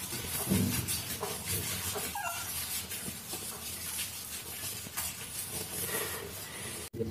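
A wet cat meowing a few times while it is bathed and scrubbed by hand, over the rubbing of its soaked fur.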